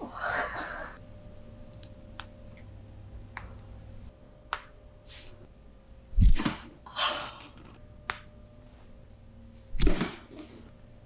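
Body-cracking massage: a few sharp clicks, then two heavy thumps about three and a half seconds apart, each followed by a breathy gasp.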